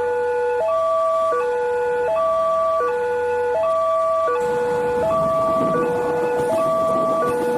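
Railway level-crossing warning siren sounding a steady two-tone hi-lo alarm, each tone held about two-thirds of a second. It signals the gate closing and a train approaching. A broad rushing noise joins a little past halfway.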